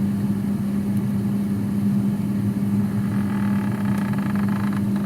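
Freezer making its 'snoring' noise, a steady, loud, rough low hum that keeps on even with the ice maker's shut-off arm propped up. A faint higher whine joins in about three seconds in and stops near the end.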